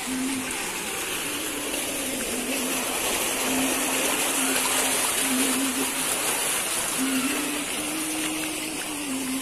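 Steady rush of running water, swelling slightly in the middle. A low hum steps back and forth between two pitches behind it.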